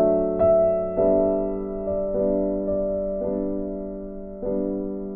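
Background piano music: slow, soft chords struck about once a second, each left to fade.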